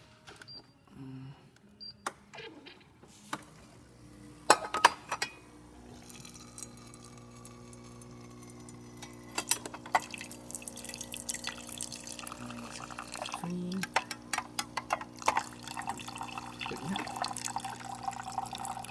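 Gaggia Academia espresso machine dispensing hot water: its pump hums steadily while water runs and splashes into a cup, growing louder over the second half. A few sharp clicks and knocks come in the first few seconds.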